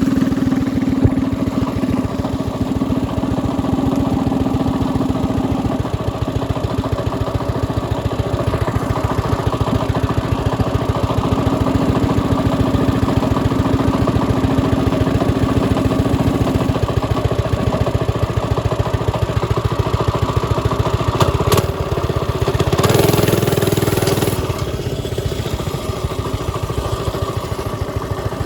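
Mini bike's small engine running steadily at low speed, with an even, fast firing pulse and a short noisy surge about 23 seconds in.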